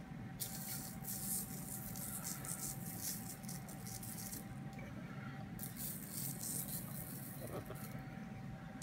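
Coarse sugar sprinkled by hand onto piped biscuit dough on a parchment-lined baking tray: a faint, light patter of grains in two spells with a short pause between. A steady faint hum runs underneath.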